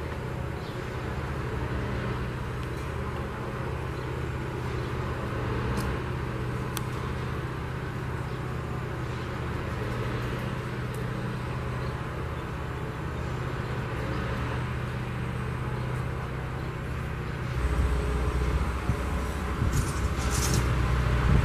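Railway track tamping machine's engine running steadily with a low hum. About 17 seconds in it gets louder with a deeper rumble as the machine works on, and a few sharp clicks come near the end.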